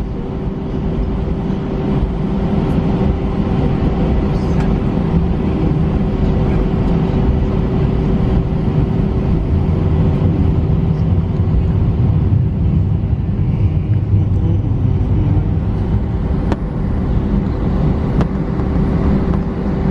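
Airbus A319 cabin noise during taxi, heard from inside the cabin: its IAE V2500 turbofan engines at low taxi power give a steady low rumble with a constant hum. The noise does not rise, so no takeoff spool-up is heard yet.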